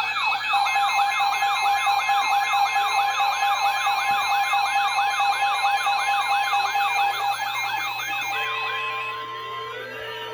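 An electronic yelping siren, rising and falling about three times a second, layered with steady alert tones and a fast beeping. The siren stops a little past eight seconds in and the tones fade out.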